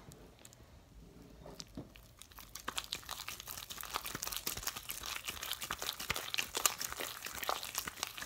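Sticky homemade slime being stretched and kneaded in the hands: a dense run of small wet crackles and pops that starts about two seconds in and keeps going.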